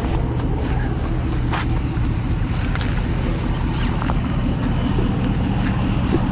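Vehicle engine idling steadily, with scattered light clicks and knocks over it.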